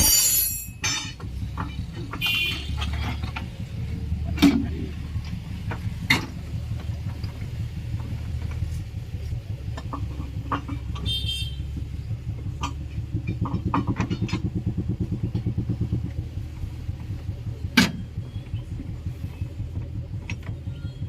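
An engine running steadily at a low idle with an even pulse, and a few sharp metallic knocks.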